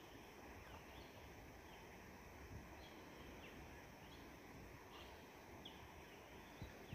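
Faint bird calls: short, high chirps that drop in pitch, repeating every half second or so over quiet natural background, with a couple of soft low knocks.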